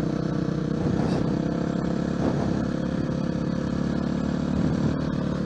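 Honda CRF450X dirt bike's single-cylinder four-stroke engine running at a steady, even pace under way.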